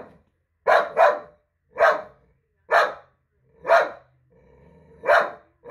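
A dog barking up at a person, a quick double bark and then four single barks about a second apart: fussing at its owner.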